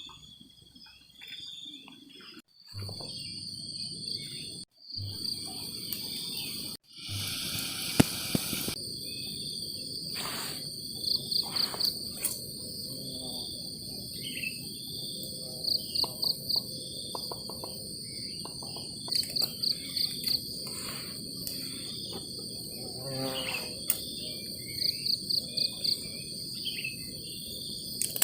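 Night-time insect chorus: a steady high trill with a rapid run of about five pulsed chirps every few seconds, and scattered short chirps. The sound cuts out briefly a few times early on, with a short burst of rustling noise about eight seconds in.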